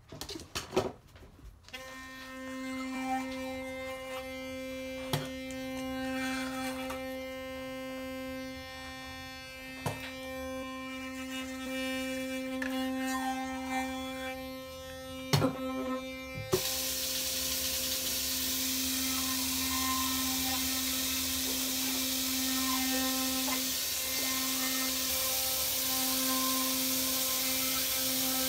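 Electric toothbrush switched on about two seconds in and buzzing steadily as teeth are brushed, one steady hum with a few sharp clicks along the way. About halfway through, a steady hiss joins the buzz.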